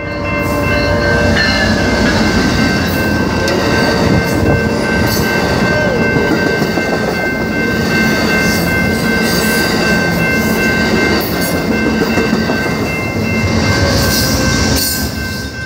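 Double-length Amtrak passenger train passing at speed: a loud, steady rush of wheel and rail noise, with a few steady high tones held through it.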